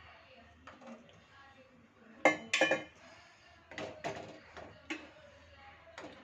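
A metal utensil clinking against kitchen dishes or pans: a few sharp ringing strikes, the two loudest close together about two seconds in, and lighter knocks after them.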